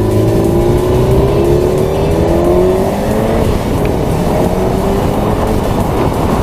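Car engine accelerating hard: its pitch climbs steadily, drops at a gear change about three and a half seconds in, then climbs again.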